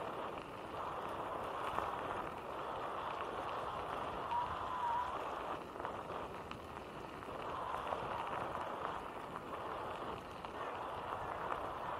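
Bicycle tyres rolling over a gravel path: a steady crunching rattle full of small ticks. A brief high chirp sounds a little after four seconds.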